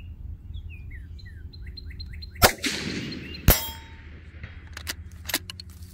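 Rifle fire at the shooting line: two loud, sharp reports about a second apart, the first followed by a long rolling echo, then two fainter sharp ticks near the end. A bird chirps a quick run of short notes before the shots.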